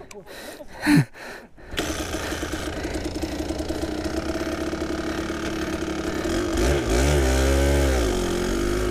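Kawasaki KDX220SR's single-cylinder two-stroke engine, heard through a mic mounted on the bike. It comes in suddenly about two seconds in and runs steadily at low revs. Near the end its pitch rises and falls as the bike pulls away, then it settles. A short, loud sound comes about a second in.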